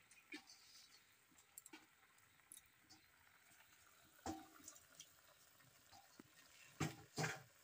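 Faint simmering from a steaming karahi of greens over a wood fire: a low hiss with scattered small pops and clicks. There is a sharper knock about halfway through and two louder knocks near the end.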